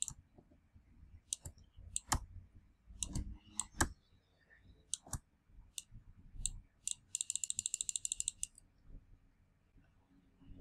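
Computer mouse clicking at an irregular pace, a dozen or so sharp clicks, then about seven seconds in a quick even rattle of ticks lasting just over a second, like a scroll wheel being turned.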